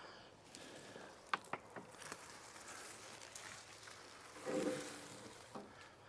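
Harvested elephant garlic plants being handled in a loader bucket: leaves rustling and a few light clicks and knocks. A brief louder low hum comes about four and a half seconds in.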